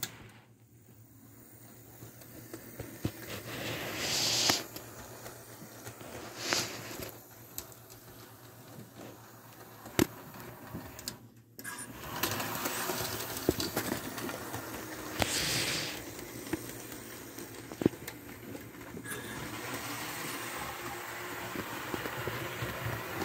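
Model train running on sectional track: a steady low motor hum with scattered clicks and a few short hisses.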